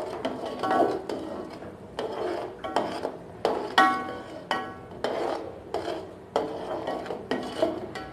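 Metal spoon stirring boiling sugar syrup and ghee in a metal pot, scraping and knocking against the pot about twice a second, with one clink that rings briefly about four seconds in.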